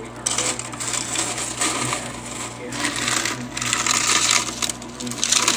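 A plastic scoop digging and scraping through nugget ice in the bin of a Gevi countertop nugget ice maker, in four rustling, clinking strokes. The ice maker's steady low hum runs underneath.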